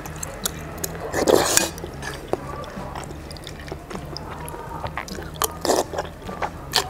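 Eating soup with a metal spoon: spoon clicks against the bowl, brief slurps of broth and chewing, over a steady low hum.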